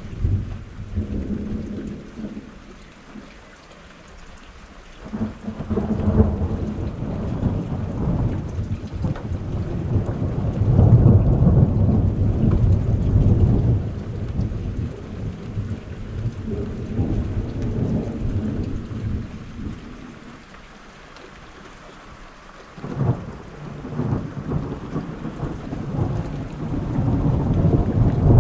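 Rolling thunder comes in long waves over steady rain. One long peal builds about five seconds in and dies away after several seconds, and another swells a few seconds before the end.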